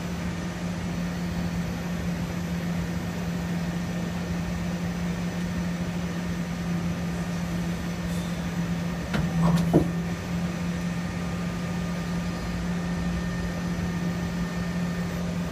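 Daewoo Puma 2000SY CNC lathe powered up and running with a steady low hum. About nine to ten seconds in there is a brief louder clunk.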